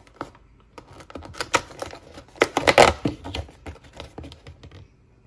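Perforated cardboard door of an advent calendar being pushed in with a fingertip and torn open: a run of quick crackling tears and clicks, loudest about halfway through.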